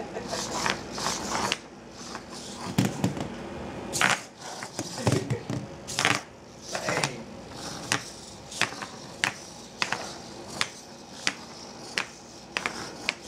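Small four-legged walking robot's legs and ball feet clattering on a tile floor: a string of sharp, irregular clicks and taps, with a few duller knocks in between, as the feet slip and slide on the hard tile.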